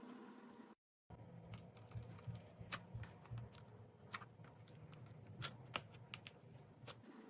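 Slime with clay mixed into it being kneaded and pressed by hand, giving an irregular run of small sticky clicks and pops. The sound drops to dead silence for a moment about a second in, where one clip cuts to the next.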